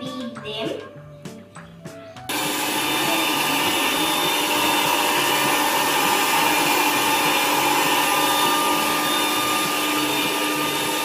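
Electric stand mixer switched on about two seconds in, its motor running steadily with a whine as the beaters turn in chocolate cake batter.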